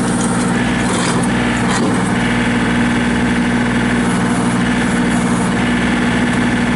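John Deere 2032R compact tractor's three-cylinder diesel engine running steadily at idle.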